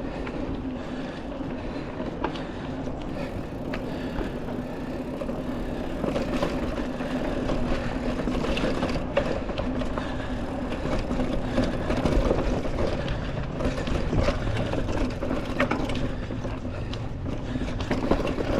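Mountain bike rolling on a dirt trail: the rear hub's freehub ratchet buzzes at a steady pitch while coasting, over tire noise and scattered rattles and clicks from the bike on rough ground.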